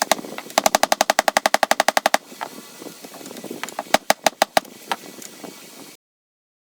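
Hammer blows driving a screwdriver's steel shank into its wooden handle: a fast, even run of taps for about a second and a half, then a handful of separate, harder strikes.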